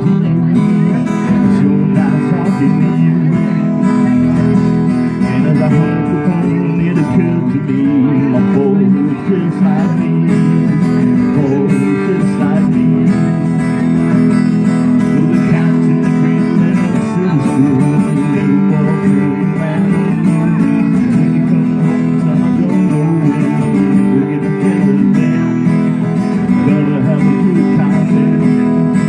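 Two acoustic guitars played live, strummed steadily through the passage.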